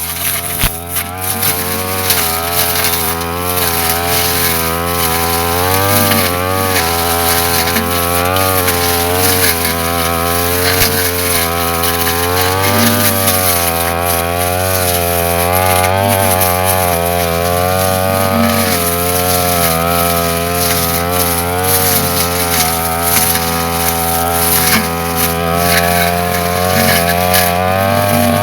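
Brush cutter engine running at working speed while cutting grass, its pitch wavering up and down as the load changes.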